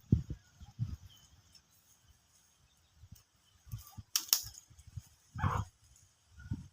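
Farm animals: a short animal call about five and a half seconds in, among scattered low knocks and bumps and one sharp click about four seconds in.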